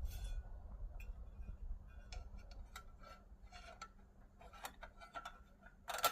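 Light, scattered clicks and ticks of a screwdriver and small plastic parts being handled during reassembly of a car radio display unit, with a sharper click near the end.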